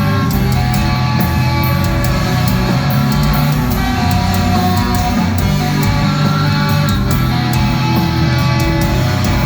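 A metalcore band playing live at full volume: distorted electric guitars over steady drum hits, with no vocals standing out.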